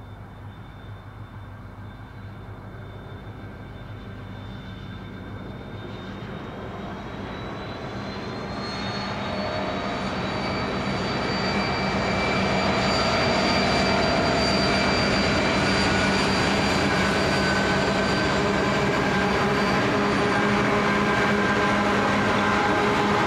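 Four diesel-electric freight locomotives working in multiple, hauling a long train. Their engines drone with a high whine on top, growing louder over the first dozen seconds as they approach, then holding loud and steady as they pass close by.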